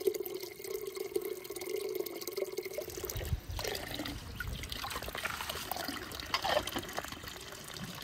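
Spring water running from a pipe spout into a metal kettle, filling it with a steady tone. After about three seconds this gives way to uneven splashing of water into a shallow puddle.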